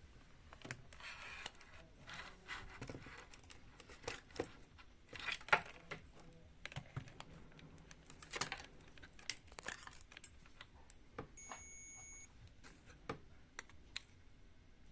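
Faint, scattered clicks and rustles of small tools and multimeter probes being handled over a mobile phone circuit board, with one short electronic beep about twelve seconds in.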